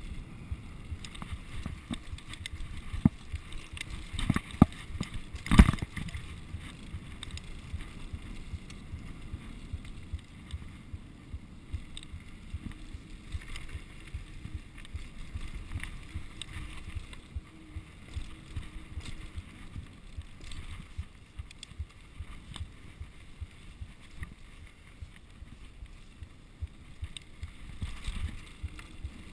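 Mountain bike riding over a rough dirt trail: a steady low rumble of tyres and wind on the microphone, with sharp knocks and rattles from the bike as it jolts over bumps, a quick run of loud knocks about three to six seconds in, the loudest near five and a half seconds.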